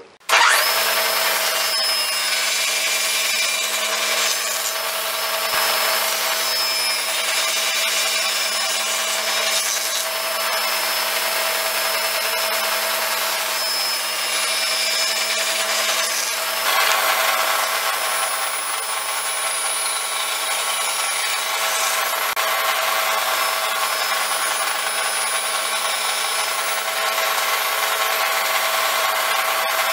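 Table saw running steadily, its spinning blade cutting through pine boards.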